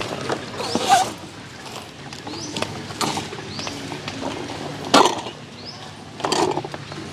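Clacks and knocks of aluminium camp gear being handled and set down, with sharp hits about a second, three seconds and five seconds in, the last the loudest, and a rattle a little after six seconds. A bird repeats a short rising call over the top.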